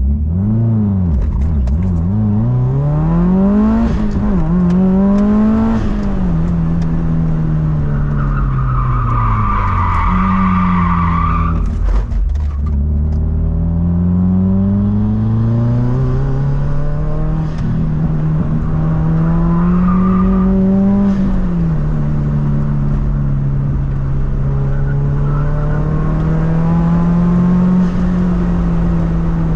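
2005 Subaru Forester XT's turbocharged flat-four engine being driven hard, its revs climbing and falling repeatedly through gear changes. About eight seconds in, the tyres squeal for about four seconds. The engine then drops to low revs before pulling up again.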